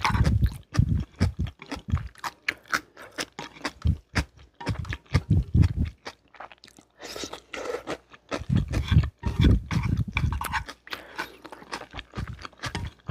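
Close-miked chewing and slurping of spicy jjolmyeon noodles, with many short wet mouth clicks and the low thuds of chewing throughout.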